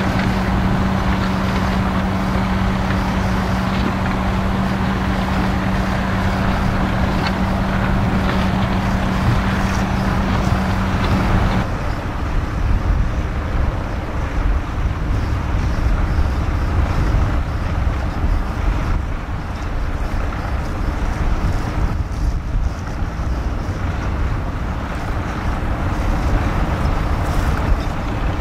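Fendt 724 tractor's six-cylinder diesel engine running under load while pulling a six-furrow plough, with a steady hum that cuts off abruptly about twelve seconds in. After that the engine is a lower, more distant rumble with wind buffeting the microphone.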